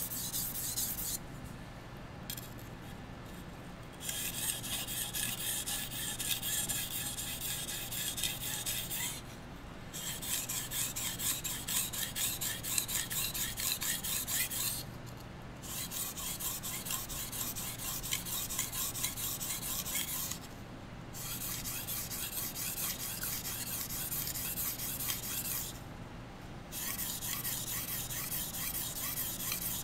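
Steel knife blade scraped back and forth across a whetstone in quick, even sharpening strokes. The strokes come in runs broken by short pauses about every five to six seconds.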